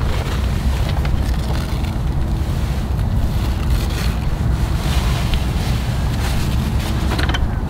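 Wind buffeting the microphone in a steady low rumble, with the canvas of a Rhino-Rack Batwing awning rustling as it is pulled out of its bag and unfolded, strongest in the second half.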